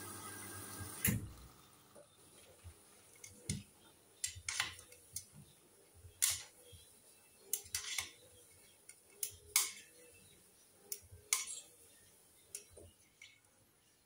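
Hoover front-loading washing machine at the start of a wash: its steady running noise cuts off about a second in. Irregular sharp clicks and water sounds follow from inside the drum while it rests.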